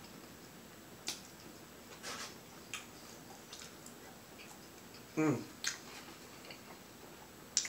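Close-up eating sounds from a seafood boil eaten by hand: scattered wet smacks and clicks of chewing and of fingers picking the food apart. A short hum falling in pitch comes about five seconds in.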